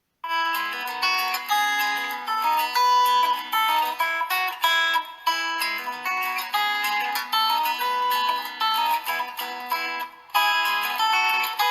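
Xiaomi Redmi 7A pre-installed ringtone: a plucked, guitar-like melody of separate notes. It starts just after a moment of silence and breaks off briefly about ten seconds in before it goes on.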